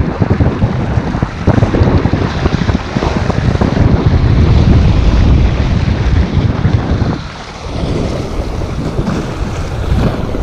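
Wind buffeting the microphone, heavy and rumbling, with sea waves breaking and washing over shoreline rocks; the wind eases briefly about seven seconds in.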